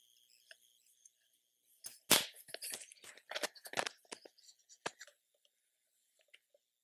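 Clip-on lavalier microphone being handled against a shirt: a run of crackling rustles and sharp knocks, the loudest about two seconds in, dying away shortly after the fifth second.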